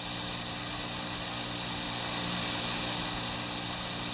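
Steady low hum with hiss on an old police radio dispatch recording, in a pause between transmissions.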